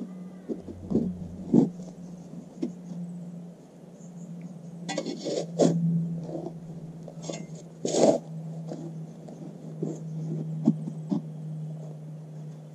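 Shovel blade being driven into grassy soil and levering out dirt: a handful of sharp strikes and scrapes, the loudest about eight seconds in, over a steady low hum.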